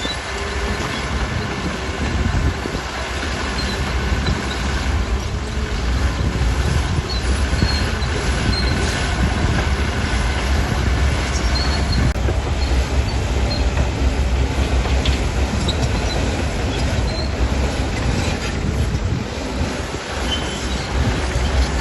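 Bulldozer working: a steady low engine rumble with brief high squeaks from its steel tracks scattered throughout.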